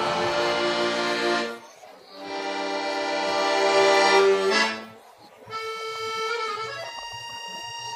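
Music played on an accordion-type free-reed instrument: two long held chords, each fading out, then a quieter passage of higher sustained notes.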